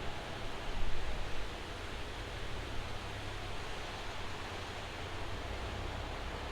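Steady hiss of a rain shower falling, with a low rumble beneath it. It swells briefly louder about a second in.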